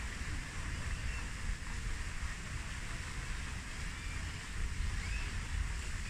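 Wind buffeting the microphone in an uneven low rumble over a steady outdoor hiss, with a few faint, brief bird chirps.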